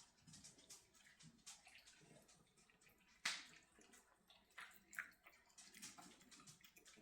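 Faint, scattered clicks and crunches of dogs eating kibble and wet food from bowls, with a sharper click a little past three seconds in.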